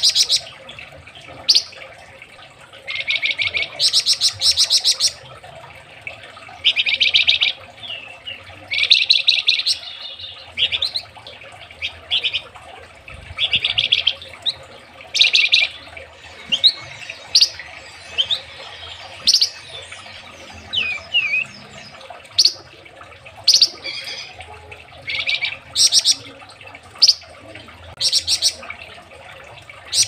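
Caged flamboyan songbird singing a string of short, rapid, rattling trilled phrases about every second or two, with a few thin sliding whistles between them partway through.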